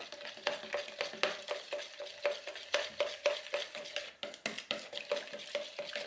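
A spoon stirring powdered mica colour into a liquid mixture in a plastic measuring jug, tapping and scraping against the jug walls in quick repeated strokes, about four a second.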